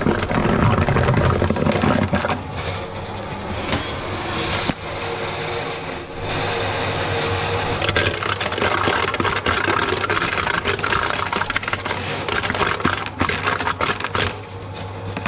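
Electric drain-cleaning machine running, its spinning spiral cable rattling and scraping inside a drain pipe clogged with grease and sludge, over a steady motor hum.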